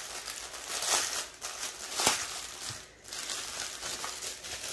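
Clear plastic packaging bag crinkling and crackling as it is handled and opened, with a sharp crackle about two seconds in and a brief lull near three seconds.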